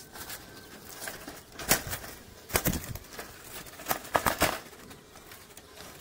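Caged birds flapping and scuffling against wire mesh: a few short bursts of wing beats and knocks, the strongest about a second and a half in and again around two and a half and four seconds in.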